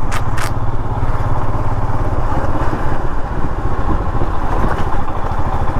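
Motorcycle engine running steadily while riding, with an even low throb. Two short clicks sound just after the start.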